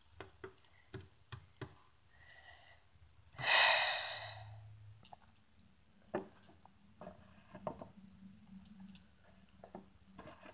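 Plastic toy dinosaur figures clicking and tapping lightly on a wooden tabletop as they are moved by hand, with one long breathy sigh about three and a half seconds in.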